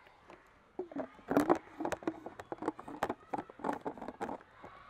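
Plastic housing and fittings of a B.nova tap-mounted water purifier being handled and fitted together: a quick run of light clicks and knocks starting about a second in.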